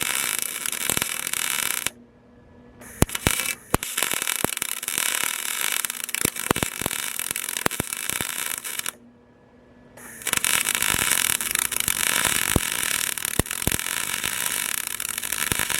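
Aluminium welding arc crackling and hissing in long runs, with sharp pops, stopping briefly about two seconds in and again about nine seconds in between weld passes.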